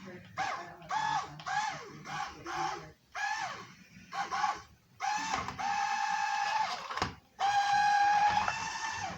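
Electronic sound effects from a transforming remote-control robot car's built-in speaker: a string of short, high, bending tones, then two long held tones.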